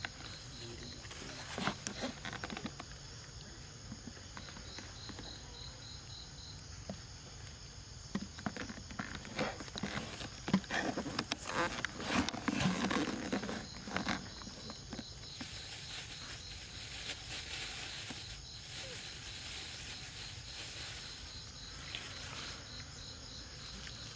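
Forest insects chirping and trilling steadily in a high, even chorus, with a repeating pulsed call in places. Scattered short clicks and rustling come in between about 8 and 14 seconds in.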